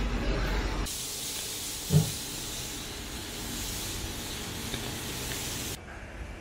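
A low hum for about the first second gives way to a steady hiss that cuts off suddenly near the end. There is one short thump about two seconds in.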